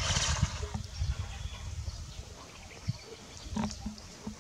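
Long-tailed macaques giving a few short, low grunts, over a low rumble that is loudest at the start.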